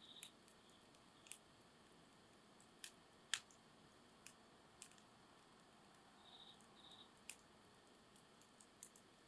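Wood campfire crackling softly: sparse sharp pops and snaps, the loudest about three seconds in.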